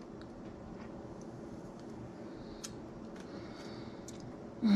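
Quiet sipping of a thick, creamy blended lemonade through a wide straw, with a few small mouth clicks and a faint hiss of suction. Right at the end comes a short, breathy sigh of satisfaction.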